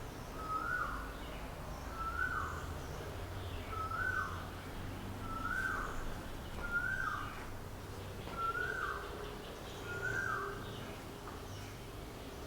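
A bird repeating one short whistled call at a steady pace, about once every second and a half. Each note rises, then falls away.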